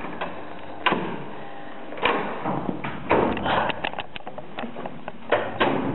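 Irregular knocks and thumps: single sharp strikes about a second in and at two seconds, a quick run of clicks and knocks in the middle, and two more strikes near the end.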